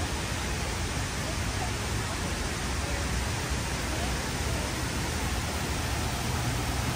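Steady rush of falling water from the 9/11 Memorial's South Pool waterfall, one of the largest man-made waterfalls in North America, dropping about 30 feet into the pool.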